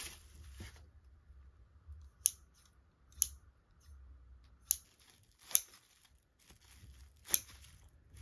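A brief rustle of bubble wrap, then stainless steel kitchen scissors being worked open and shut, their blades closing with five sharp metallic clicks spaced about a second apart.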